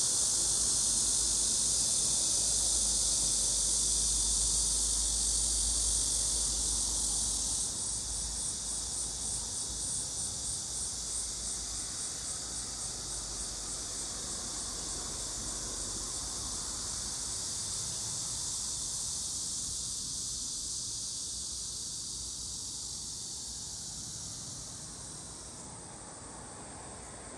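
Cicadas singing in a continuous high buzz. About eight seconds in, the buzz breaks into a pulsing rhythm of two or three beats a second, then slowly fades away.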